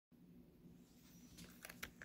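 Near silence: room tone with a faint steady low hum, and a few faint clicks about a second and a half in.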